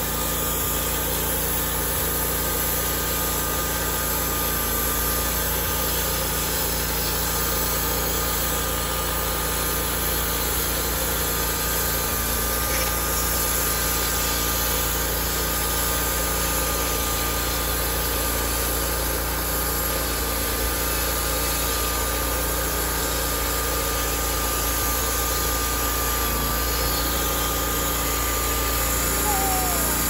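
Homemade bandsaw mill's engine running steadily under load while its band blade saws lengthwise through a pine log.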